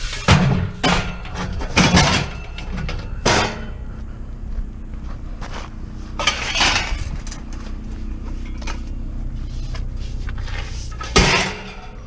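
Scrap metal clanking and rattling as pieces are picked up and moved, in several separate clatters, the last and loudest near the end, over a steady low hum.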